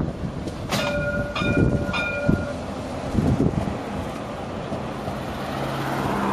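Modern articulated coast tram sounding its horn, a chord of several notes held for about two seconds, starting about a second in. The tram then rolls off past close by, its running noise growing toward the end.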